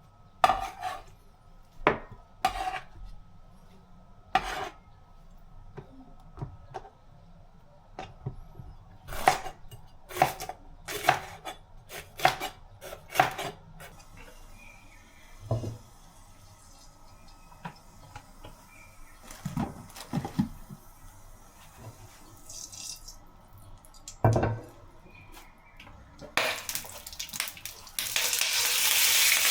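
Kitchen cooking sounds: pots, dishes and utensils clinking and knocking, in quick sharp strikes through the first half and scattered ones later. Near the end food goes into a hot pan and starts sizzling loudly and steadily.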